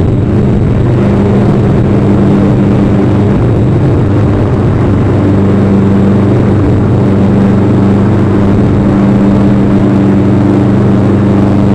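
A loud, steady low hum with a rushing noise over it, unchanging throughout, like a motor or machine droning.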